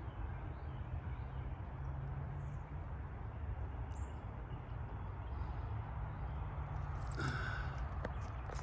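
Low rumble of wind on the microphone over footsteps in dry leaf litter, with a brief bird call about seven seconds in.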